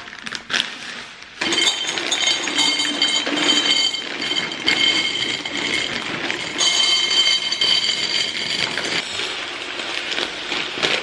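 Dry pasta poured from plastic bags into glass storage jars, the pieces rattling and clinking against the glass in a dense, steady pour.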